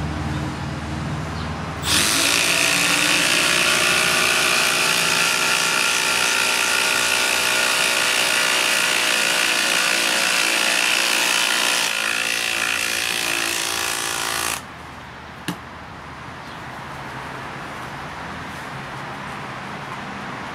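Milwaukee M12 Surge hydraulic impact driver driving a long 14-gauge batten screw: a loud, steady whirring hammer that starts about two seconds in, changes pitch slightly near the end of the drive and cuts off suddenly after about twelve seconds. A single sharp click follows shortly after.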